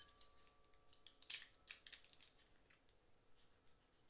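Faint scraping snips of a small pocketknife cutting through a plush toy's packaging ties, a handful of short strokes, the strongest about a second and a half in.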